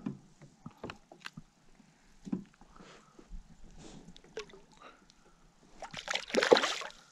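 Light clicks and knocks of a fish being unhooked and handled at the side of a kayak. About six seconds in comes a loud splash as a released smallmouth bass kicks away at the surface.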